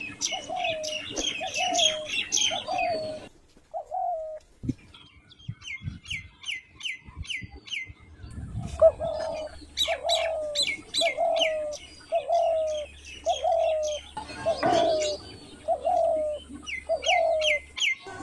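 Birds calling: a repeated short mid-pitched call, about one every three-quarters of a second, over many quick high chirps from small birds. The calls break off a few seconds in and resume about halfway through, with one louder call near the three-quarter mark.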